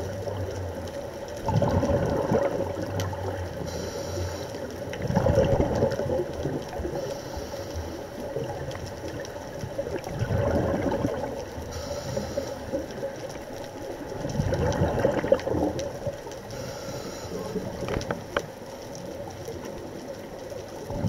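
Scuba diver breathing through a regulator underwater: four rushing bursts of exhaled bubbles, about four to five seconds apart, over a steady faint hum.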